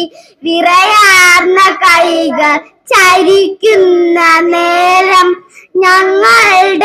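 Young girls singing a prayer song into a microphone, in long sustained phrases with brief pauses for breath between them.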